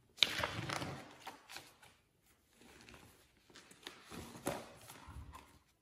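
Pages of a hardcover picture book being handled and turned: paper rustling in two bursts, with a sharp tap about a quarter second in.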